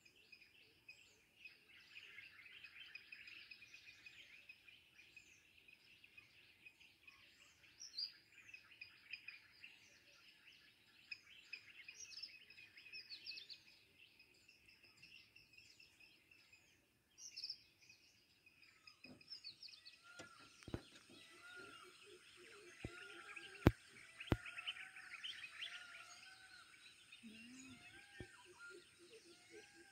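Faint chorus of wild birds chirping and whistling over quiet outdoor background, with a few sharp clicks about two-thirds of the way through.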